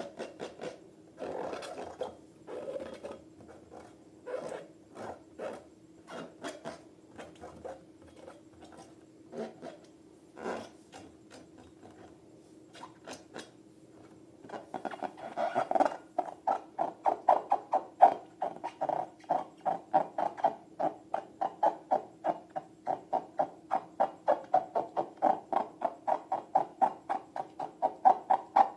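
Hands squishing and poking slime: scattered wet clicks and pops at first, then from about halfway a fast, regular squelching about three times a second, over a faint steady hum.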